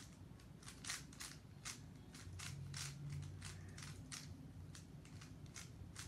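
A plastic Rubik's cube being turned fast by hand, running through a repeated down-twist-up-twist move sequence. Its layers click with each turn, about two to three turns a second.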